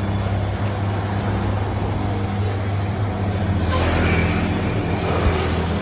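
Motor-driven soybean washing machine for tempe running with a steady hum. About two-thirds of the way through, a rushing noise swells for roughly a second.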